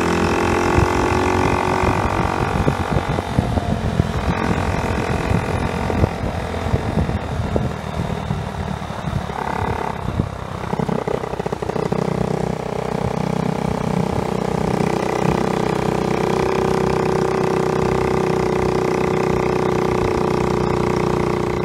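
Honda Monkey's small 49cc four-stroke single-cylinder engine running on the move. Its pitch rises over the first few seconds, then drops and climbs again a few times as the throttle and gears change, settling steadier in the second half.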